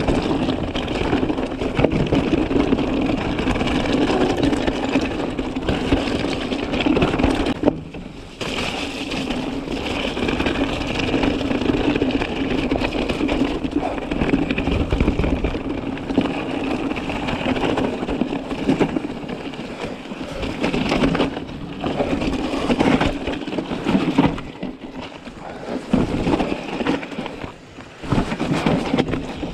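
Mountain bike descending a rocky trail: tyres crunching and rattling over loose stones, with the bike clattering over the bumps. The noise drops briefly about a quarter of the way in and again near the end.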